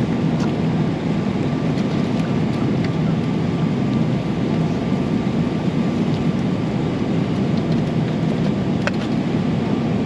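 Steady cabin noise of a jet airliner in flight: a constant low hum of engines and rushing air, with a faint steady tone over it. A single light click near the end.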